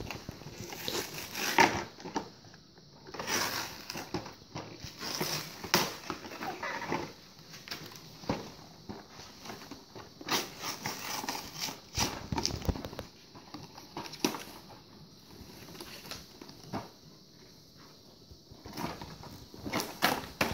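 Small toy cars and plastic figurines being picked up and set down on a tabletop: irregular light clicks and knocks.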